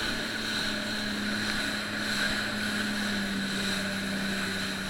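Jet ski engine running at a steady cruising speed, an even drone at a constant pitch, with wind and water noise over it.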